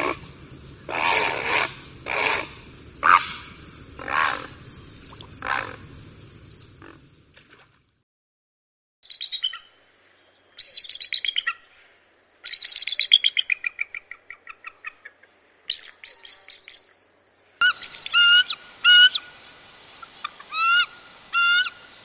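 A great blue heron giving about six harsh, rasping croaks, then a bald eagle's high, thin calls: rapid chattering series of notes falling in pitch, and near the end repeated short whistled notes.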